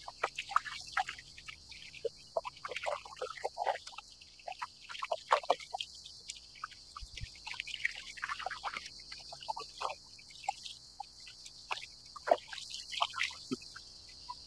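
Small waves lapping against a plastic kayak hull: irregular plinks, drips and light slaps of water, over a steady high hiss.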